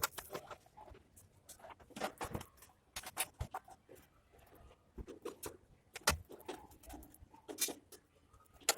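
Irregular light clicks and knocks, a few louder than the rest, with quiet handling noise between them.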